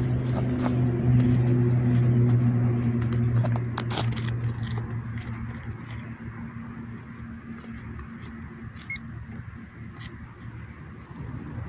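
Hands scraping and crumbling dry clay soil in a dug hole, with scattered small clicks and crackles. A low engine hum is loudest for the first few seconds and fades away.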